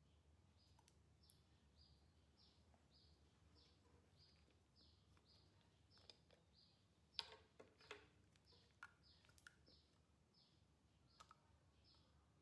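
Faint, evenly repeated high chirps from a small animal, each a short falling note, about two a second. A few sharp clicks come in the middle, the loudest about seven seconds in.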